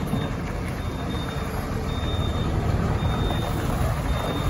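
Volkswagen Constellation 24.250 truck's diesel engine running steadily as it manoeuvres, with a faint high reverse-alarm beep repeating about once a second.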